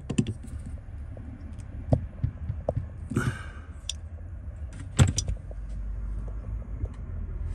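Metal tools clinking and knocking against a plumbing fitting as it is tightened to stop a water leak, with a sharp knock about five seconds in, over a steady low hum.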